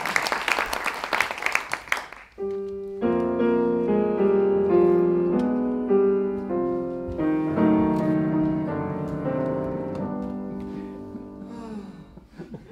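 Audience applause dying away about two seconds in, followed by a grand piano playing an interlude of chords and melody that fades out near the end.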